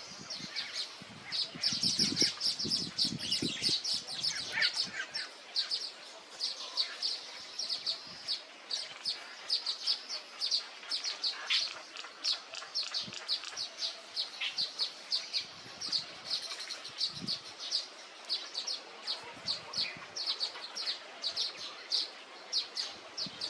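Small birds chirping continuously in rapid runs of short, high notes. There are a few low rumbles or rustles in the first few seconds.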